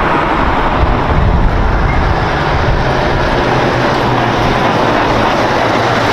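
Scania tractor unit hauling a tanker semi-trailer, its engine running steadily and loudly as the truck drives past close by, with a slight swell about a second in.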